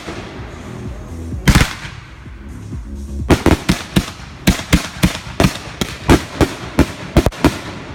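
Fireworks going off: one loud bang about a second and a half in, then a quick string of a dozen or so sharp reports from about three seconds in, with background music underneath.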